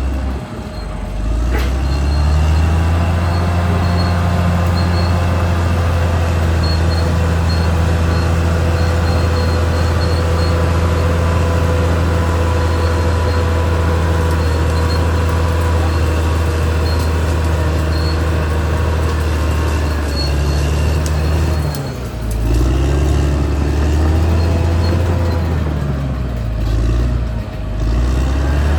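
Caterpillar D6R XL bulldozer's diesel engine running hard and steady, its note rising about two seconds in. Near the end the engine note dips and picks up again twice.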